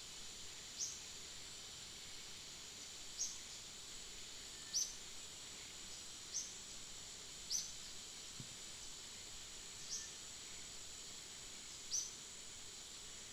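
Outdoor ambience: a steady high-pitched insect drone, with a bird's short descending chirp repeated seven times, roughly every two seconds.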